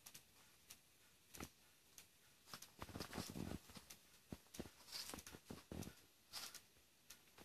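A cat eating dry food and moving about on a tile floor: faint, scattered crunches and small clicks, with a denser run of crunching about three seconds in.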